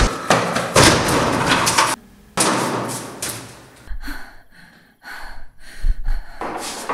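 Several sudden loud slams and thuds, horror-film sound effects, with a noisy rush between them that cuts off abruptly about two seconds in and swells back. More hits follow in the second half.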